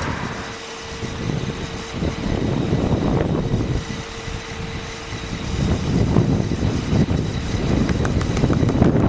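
Car driving: steady road and wind noise, with a faint steady hum through about the first half.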